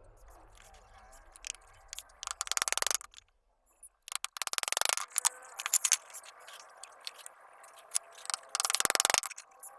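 Scraping and rattling from hand work on a lovebird breeding box, coming in short clattering bursts of under a second, several times, with a brief cut to silence about three seconds in.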